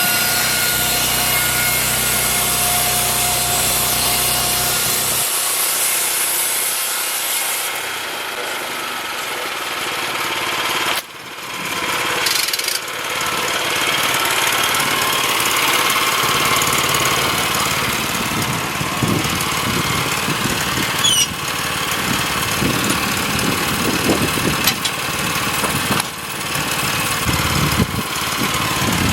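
Small gas engine of a band sawmill running while the band blade cuts through a pine log. The sound changes partway through, with a brief drop about a third of the way in.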